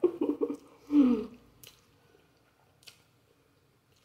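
A person eating instant noodles: a short voiced sound in the first second, then soft wet chewing with a couple of faint clicks from the mouth.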